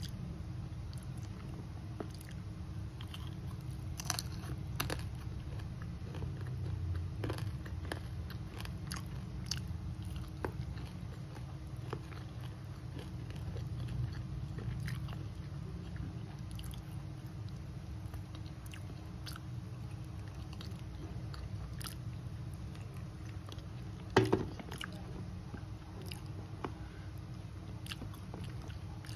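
Close-up chewing and biting of Madura-style duck with rice eaten by hand, with crunching and many small scattered clicks over a steady low hum. One louder knock comes late on.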